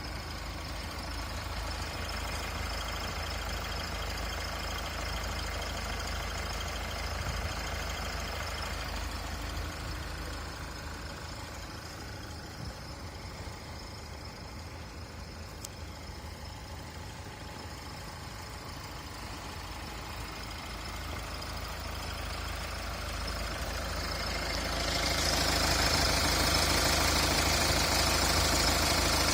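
An engine idling steadily with a faint high whistle over it. About 25 seconds in, the sound grows louder and turns to a broad hiss.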